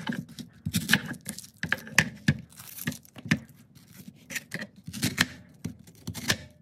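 A serrated kitchen knife cutting through an onion on a wooden cutting board, with the crackle of the dry skin being torn and peeled off by hand: irregular sharp cuts and knocks of the blade on the board.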